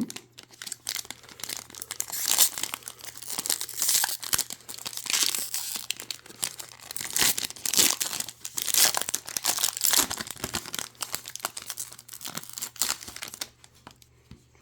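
Hockey card pack's wrapper crinkling and tearing in uneven handfuls as it is opened by hand, stopping near the end.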